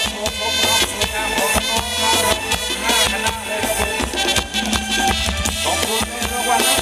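Live band playing upbeat Thai ramwong dance music, with trumpet, saxophone, electric guitar and drum kit over a steady beat.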